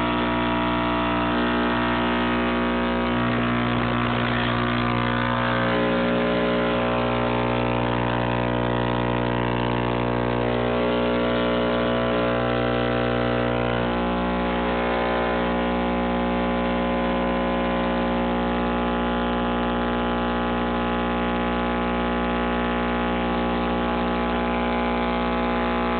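Small electric motor running on wall-socket power with a steady hum of many even tones. A low note in the hum comes and goes a few times in the first half, then drops out for good.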